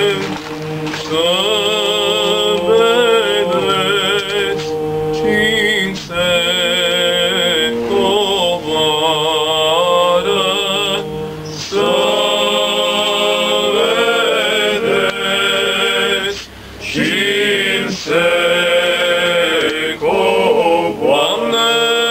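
Small male vocal group singing a Romanian Christmas carol (colindă) a cappella, the voices together, with short breaks between phrases about halfway through and again later.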